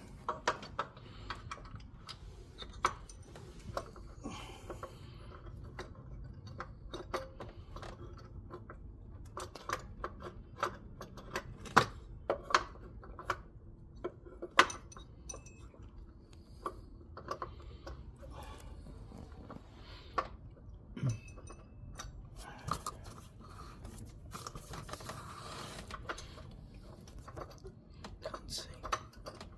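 Scattered metal clicks and knocks of a replacement accessory belt tensioner being worked onto its mount, its guide pin being lined up with the housing, with two louder knocks about 12 and 15 seconds in.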